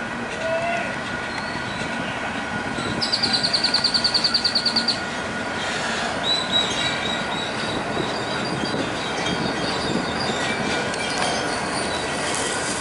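Freight train cars rolling past at a grade crossing, a steady rumble and clatter of wheels with high wheel squeal, which holds steady from about halfway through. About three seconds in, a rapid high pulsing ring sounds for about two seconds.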